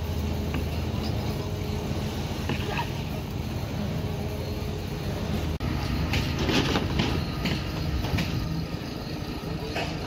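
Construction-site noise: a steady low machinery hum, with more and more short metallic clinks and knocks, like steel rebar being handled, in the second half.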